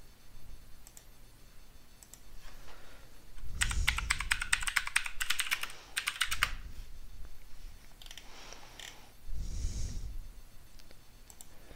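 Typing on a computer keyboard: a quick run of key clicks lasting about three seconds, followed by a few scattered key presses and a dull knock near the end.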